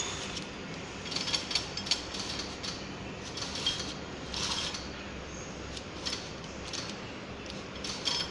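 Plastic packaging film crinkling and rustling as it is fed by hand through the forming tube of a vertical packing machine, with scattered irregular clicks of small metal parts in clusters about a second in, around the middle and near the end. A faint steady hum lies underneath.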